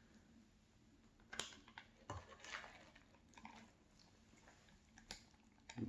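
Faint, scattered rustles and clicks of a plastic milk bag being handled and opened.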